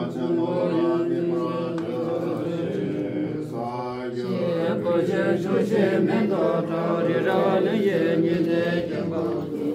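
Group of Buddhist monks chanting together in low, steady voices, the chant running on without a pause.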